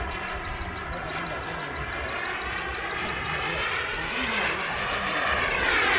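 Radio-controlled model airplane flying overhead, its engine and propeller giving a steady buzzing drone. About five seconds in the pitch rises and the sound grows louder.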